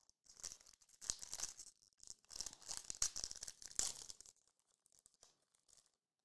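Foil trading-card pack being torn open, its thin metallic wrapper tearing and crinkling in several hissy bursts for about four seconds, then a few faint light ticks as it settles.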